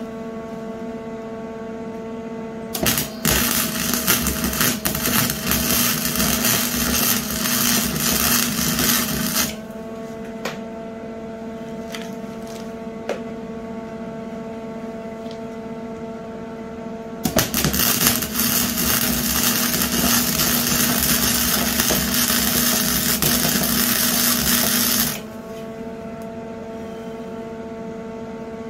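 Wire-feed welder running two welds on a shopping cart's steel tube frame: the arc crackles steadily for about six seconds, stops, then crackles again for about eight seconds. A steady hum carries on underneath and between the welds.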